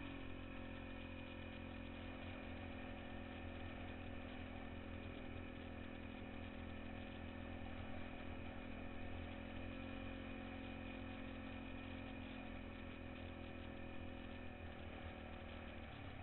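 ATV engine running at a steady pitch while the quad cruises along, its pitch dropping near the end as it slows.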